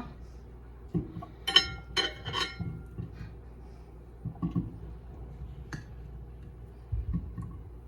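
Glass microwave turntable plate clinking: three quick ringing clinks about a second and a half in, with a few dull knocks as sweet potatoes are set on it.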